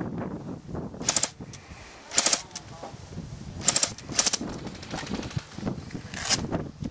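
Airsoft rifle firing five short bursts of rapid, sharp clicking shots, spaced about a second or two apart.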